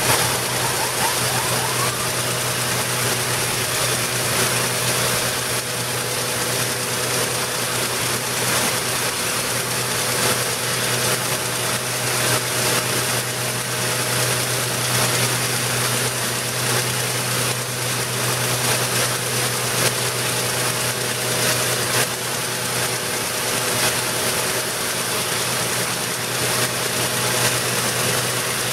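Stripe Hog line-removal truck at work: its water-blasting head with vacuum recovery strips a painted lane line off asphalt. It makes a steady, loud rushing noise over the low drone of the truck's engine.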